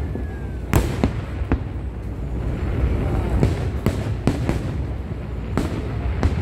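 Aerial fireworks bursting: about nine sharp bangs spread irregularly through six seconds, the loudest about a second in, over a continuous low rumble.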